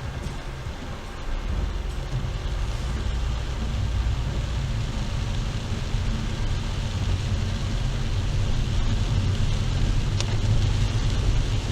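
A car driving in heavy rain, heard from inside the cabin: a steady low rumble of road and engine under a hiss of rain. It gets louder about a second and a half in, and the rain hiss grows toward the end.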